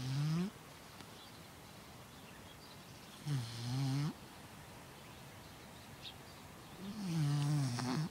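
Sleeping puppy snoring: three snores about three and a half seconds apart, each with a wavering pitch, the last one the longest.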